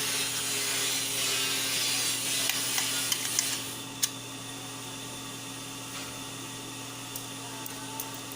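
Small laptop parts and a screwdriver being handled during a hard-drive-to-SSD swap: scratchy rubbing and scraping for about three and a half seconds, one sharp click about four seconds in, then a few faint clicks.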